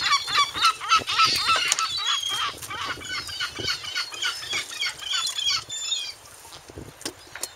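Several birds calling rapidly, many short harsh calls overlapping, several a second. The calls thin out and stop about six seconds in, leaving a couple of clicks.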